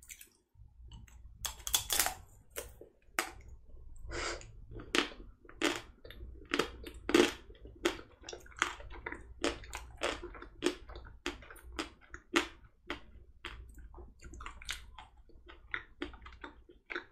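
Biting and chewing a Magnum ice cream bar, close to the microphone: its crisp chocolate shell cracks and crunches between the teeth along with softer, wet chewing of the ice cream. There are repeated sharp crunches, roughly one or two a second, and the loudest bites come about two and seven seconds in.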